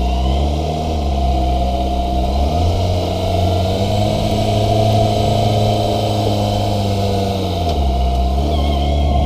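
Kawasaki ZX-25RR's 250 cc inline-four engine running while riding, its pitch rising about two and a half seconds in, holding steady, then falling back near the end.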